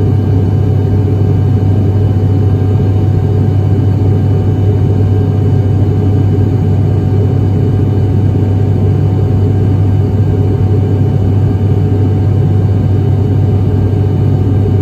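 ATR 72-600 turboprop engines and propellers running steadily at high power. There is a strong, constant low hum with fainter steady tones above it and no change in pitch or level.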